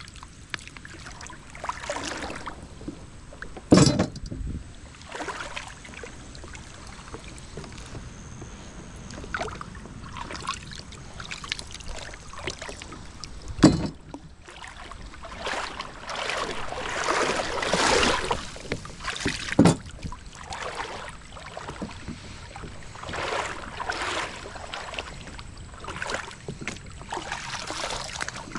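Kayak paddling: repeated swishes and splashes of the paddle blades in the river water, with three sharp knocks along the way.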